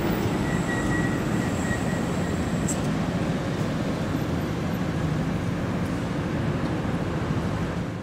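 City street ambience: a steady rumble of traffic, fading out at the very end.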